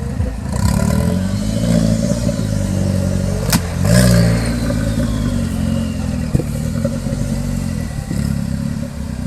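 Off-road competition vehicle's engine revving, its pitch rising and falling several times as it works through the course, with a sharp knock about three and a half seconds in and a lighter one a few seconds later.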